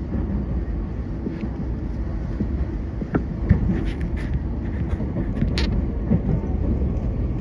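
Running noise inside a JR 233 series electric commuter train in motion: a steady low rumble of wheels on rail. A few brief sharp sounds come through about three to six seconds in.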